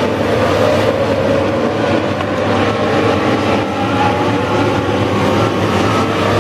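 Several Legends race cars running together, their Yamaha motorcycle engines making a loud, steady drone.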